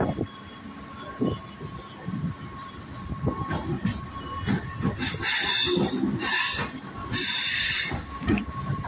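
A MEMU electric train running on the track, with scattered knocks from the wheels and a steady high tone. About five seconds in come three loud, hissing screeches from the wheels, each under a second long.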